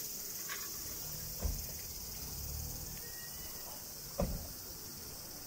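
Steady high-pitched chorus of summer insects, with two soft low thumps about a second and a half in and again near four seconds.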